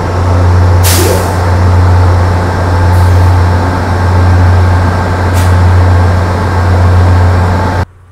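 Idling diesel passenger locomotives at a platform, a loud steady low drone. A short, sharp hiss of released air comes about a second in, with two fainter hisses later. The sound cuts off abruptly near the end.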